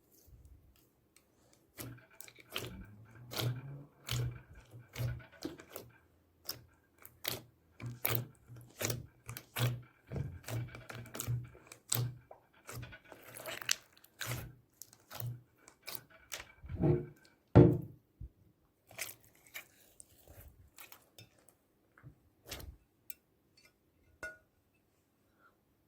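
Slime being mixed and squeezed by hand: a dense, irregular run of sticky clicks and pops, with two louder squelches about two-thirds of the way through.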